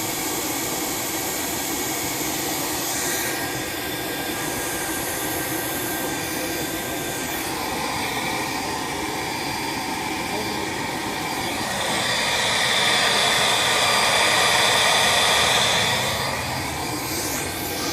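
Steady whoosh of an electric appliance's motor blowing or sucking air. It grows louder and brighter about twelve seconds in, then eases back near the end.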